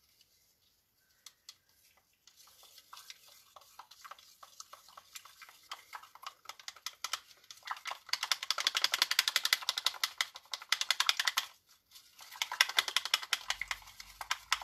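A stirrer clicking rapidly against the sides of a container as acrylic paint is mixed into pouring medium. It starts faint and grows louder, breaks off briefly about three-quarters of the way in, then goes on.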